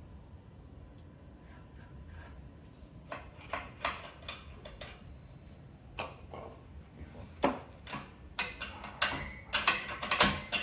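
Metal parts and tools being handled: a run of sharp clicks and knocks that starts about three seconds in and grows more frequent and louder towards the end.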